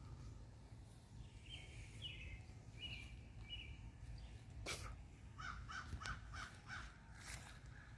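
Birds calling: four short calls in the first half, then a quick run of about six short notes. There is a sharp click in between, and a low rumble of wind or handling on the microphone runs underneath.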